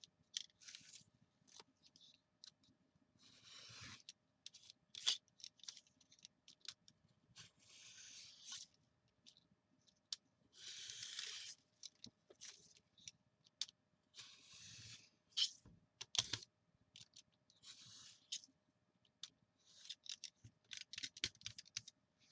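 Craft knife drawn along a ruler, cutting paper on a cutting mat: a series of faint scraping strokes about a second long each, with light clicks and taps of the tools and paper between them.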